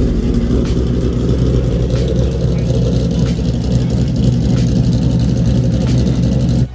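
Car engine running steadily up close with a deep, even rumble, held at a constant speed without revving.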